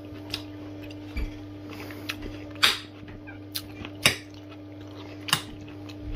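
Metal fork clinking against a ceramic plate about five times as food is picked up, the louder clinks a little over a second apart, over a steady low hum.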